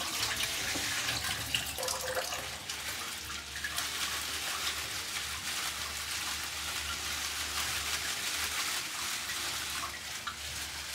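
Kitchen tap running steadily into a sink while bunches of komatsuna leaves are swished and rinsed under the stream.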